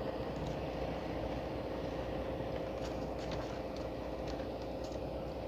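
A steady engine hum, level and unbroken, with a few faint light clicks about halfway through.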